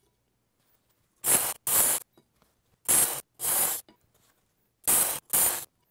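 Knife edge being ground on the abrasive belt of a Work Sharp Ken Onion Edition belt sharpener running at low speed, taking a lot of steel off to regrind a damaged edge. Three pairs of short hissing passes, one on each side of the blade, about half a second each and roughly two seconds apart.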